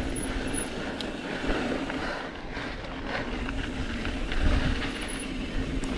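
Mountain bike rolling fast down a dirt trail: tyre noise on the loose dirt, with scattered clicks and rattles from the bike and wind on the microphone.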